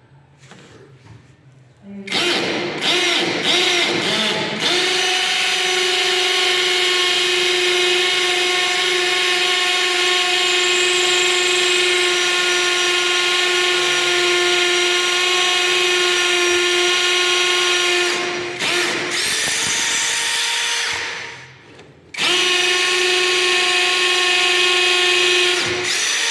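Tanzu cordless impact drill running at speed with a steady high-pitched whine. It starts with a few short bursts about two seconds in and then runs steadily. It falters and stops a few seconds before the end, then starts again and runs on.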